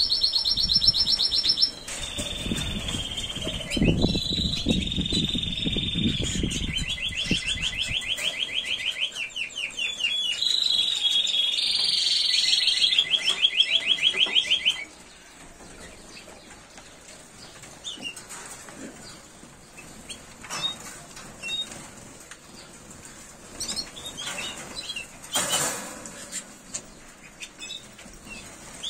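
Timbrado Español canary singing: a string of high, steady held notes and fast rolling trills, each phrase a second or two long, which stops about fifteen seconds in. After that only scattered short chirps and light clicks remain.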